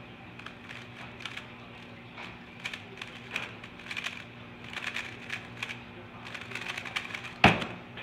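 Peak Cube S3R magnetic 3x3 speed cube turned rapidly in a speedsolve, a fast irregular run of clicking turns. About seven and a half seconds in comes one loud slap as the cube is set down and the hands hit the stackmat timer to stop the solve.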